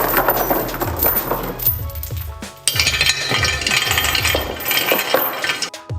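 Steel chain rattling and clinking through the inside of a freshly welded turbo pipe, knocking out welding slag and debris, over background music with a steady beat.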